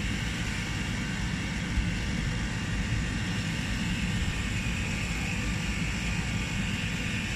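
Cold-storage refrigeration system running with a steady hum from its compressor and fans while it is being charged with R-22 refrigerant it had run short of.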